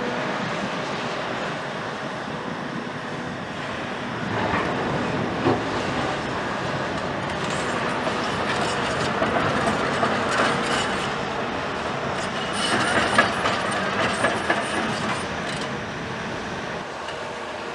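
CAT 374F tracked excavator working a pile of brick rubble. Its diesel engine and hydraulics run steadily underneath, and there are bursts of clattering bricks and metal as the bucket scrapes, digs and lifts rubble, several times over, loudest about two-thirds of the way through.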